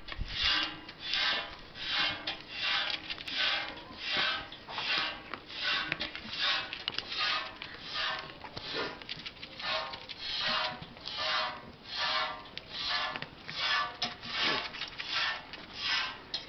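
Goat being hand-milked: milk squirting from the teats into a stainless steel pail in a steady rhythm of hissing squirts, about two a second.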